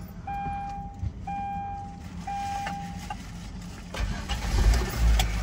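The Kia's dashboard warning chime beeps three times, about one a second, then about four seconds in the engine cranks and starts, settling into a low steady run.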